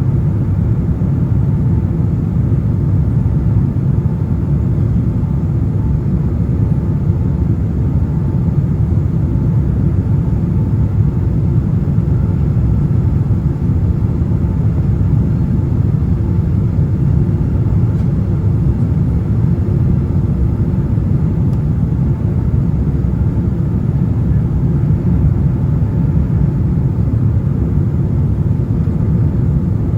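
Steady low rumble inside the cabin of a Boeing 767-400 airliner, heard from a window seat: engine and airflow noise, even throughout with no distinct events.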